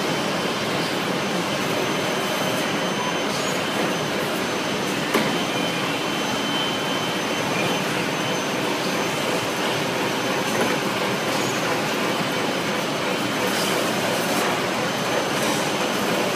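Automatic band saw log-cutting machine for toilet paper rolls running: a steady mechanical din with a faint, steady high whine and an occasional sharp click, one stronger about five seconds in.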